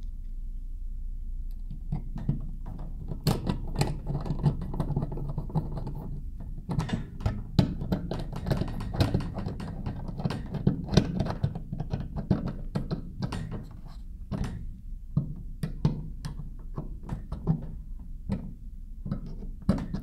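Hand screwdriver driving the screws that fasten an electrical receptacle to its plastic extension box: irregular clicks, scrapes and knocks of screw, screwdriver and box.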